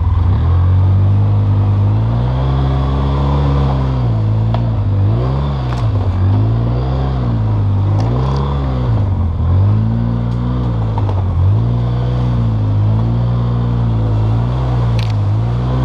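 Polaris Sportsman 700 ATV engine running under way. From about four seconds in, the throttle is worked on and off so the revs rise and fall about once a second over rough trail, with a few sharp knocks and clatter.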